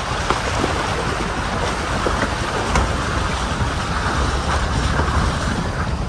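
Suburban driving a wet, muddy dirt trail: steady engine and tyre rumble with a wash of water noise and scattered short clicks and knocks.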